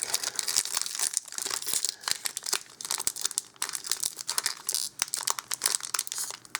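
Magic: The Gathering booster pack's foil wrapper crinkling and tearing as it is pulled open by hand, a dense run of irregular crackles.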